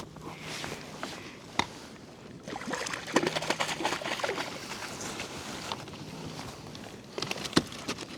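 Handling sounds on a fishing kayak as a freshly landed vermilion rockfish is dealt with on board: rustling, clicks and knocks against the hull, with two sharp knocks, one about one and a half seconds in and one near the end, over water lapping.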